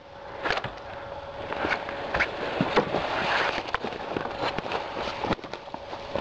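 Footsteps crunching through dry brushwood and sawdust, with irregular snaps and crackles of twigs underfoot, over a faint steady hum.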